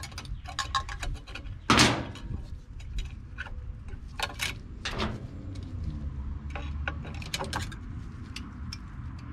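Brake spring pliers working a return spring onto the shoes of a 1948 DeSoto rear drum brake: a run of small metal clicks and scrapes. The loudest clank comes about two seconds in, and sharper clicks follow a few seconds later.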